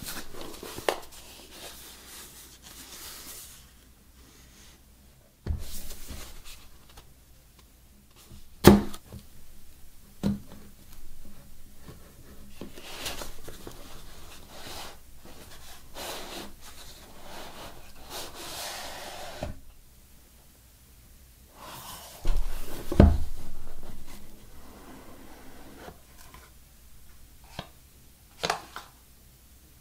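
Gloved hands rubbing, turning and opening a cardboard smartphone box, with scraping as the lid slides off its base. Two sharp knocks, about nine seconds in and again near twenty-three seconds, are the loudest sounds.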